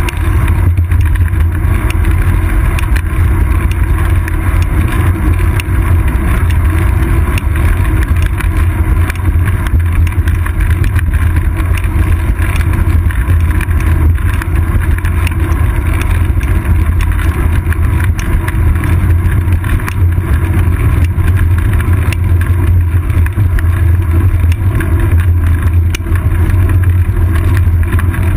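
Steady, loud wind and road rumble picked up by a seat-post-mounted GoPro Hero 2 on a moving bicycle, dominated by a deep low rumble that never lets up.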